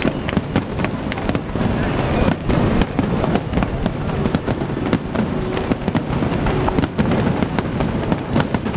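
Aerial firework shells bursting in a dense, unbroken barrage: many sharp reports close together over a continuous rumble.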